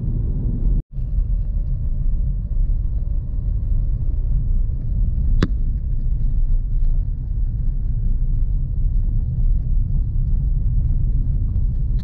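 A car being driven, heard from inside the cabin: a steady, loud low rumble of engine and road noise. It cuts out briefly about a second in, and a single sharp click comes midway.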